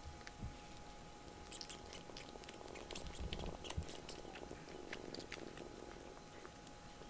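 Kitten chewing, a quick run of small clicking sounds through the middle seconds with a few soft thumps about three to four seconds in.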